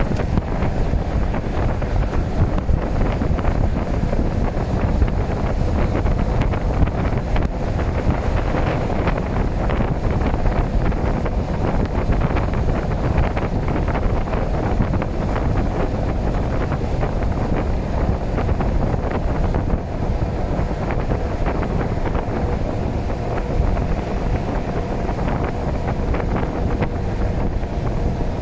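Long freight train rolling past: a steady heavy rumble with continual clacking of wheels over the rails, and wind buffeting the microphone.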